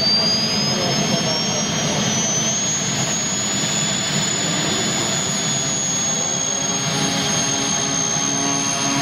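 Twin model turboprop engines of a radio-controlled FMA IA 58 Pucará in flight: a high turbine whine that climbs in pitch over the first few seconds and then holds steady, over a broad rushing noise. A lower droning hum comes in near the end.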